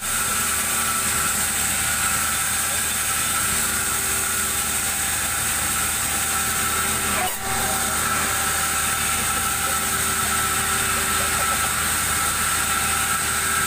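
Band sawmill running steadily with a high, even whine, its blade spinning free and not cutting.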